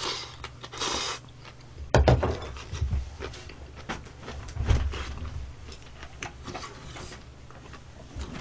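A person slurping up a mouthful of budae jjigae noodles in two quick draws, then a knock about two seconds in, followed by close-up chewing with wet mouth clicks.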